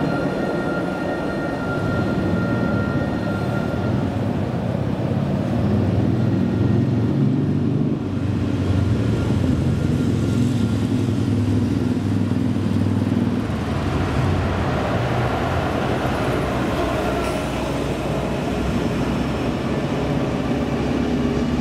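Alstom Citadis 402 tram pulling away: a steady high electric whine from its traction equipment in the first few seconds, under a low rumble of running gear on the rails. The rumble grows and then stops about two thirds of the way through, leaving a broader hiss.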